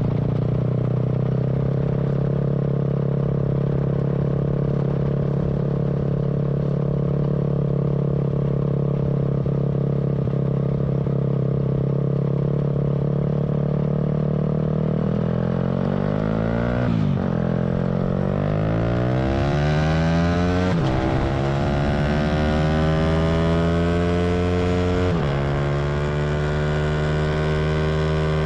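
Honda Dax's small single-cylinder four-stroke engine running at a steady pace, then revving up through the gears in the second half. Its pitch dips briefly at each of three gear changes and climbs again before settling into a steady cruise.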